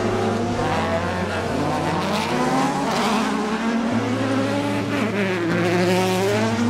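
Several autocross buggy engines revving up and down together, pitch rising and falling as the buggies power through a dirt hairpin one after another.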